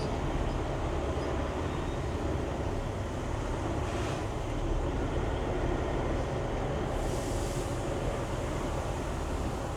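Semi truck's diesel engine running with a steady low rumble, with two brief hisses about four and seven seconds in.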